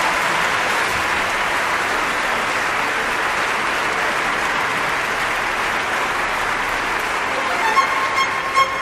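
Large theatre audience applauding steadily. Near the end the orchestra starts playing again over the applause.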